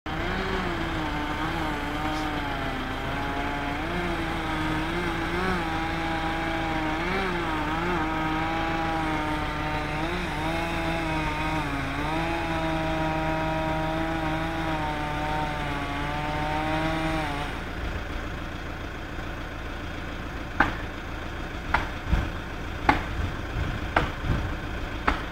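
Chainsaw running steadily under load, its pitch wavering slightly, then cutting off abruptly about two-thirds of the way through. Several sharp knocks follow, roughly one a second.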